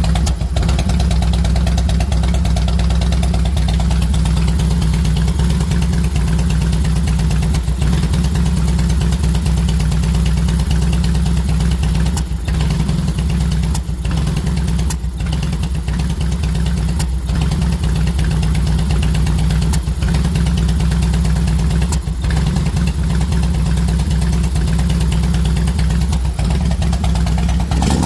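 Harley-Davidson Softail Deluxe's fuel-injected Twin Cam V-twin idling steadily, with a few brief dips and stumbles in its beat. The idle is what the owner calls rough.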